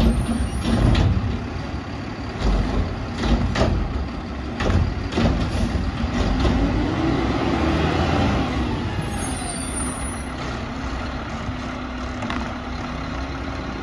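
Mack LR McNeilus garbage truck working its Curotto-Can arm. Several sharp knocks of bins and the can come in the first few seconds. The engine revs up and down to drive the hydraulics, then settles to a steady idle near the end.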